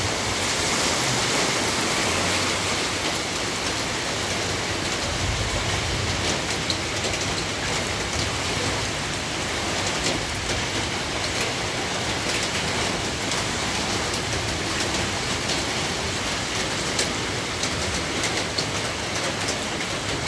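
Heavy rain falling steadily, with scattered sharper drop hits on a nearby surface.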